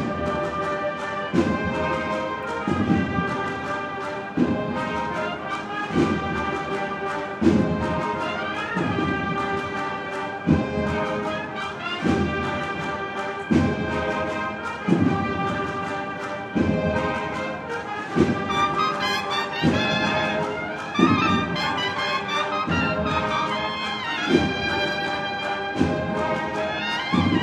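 Holy Week processional band playing live: a brass melody of held notes over a slow bass-drum beat, about one stroke every second and a half.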